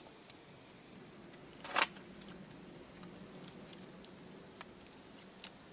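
Wood cooking fire crackling, with scattered sharp pops and one louder pop about two seconds in.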